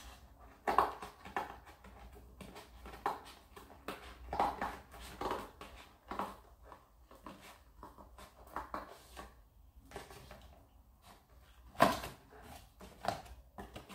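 Scissors cutting through cardboard in a series of irregular snips, the loudest about a second in and near the end.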